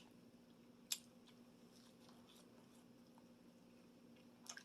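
Quiet chewing of a beef meatball, with a sharp click about a second in and another near the end, over a faint steady hum.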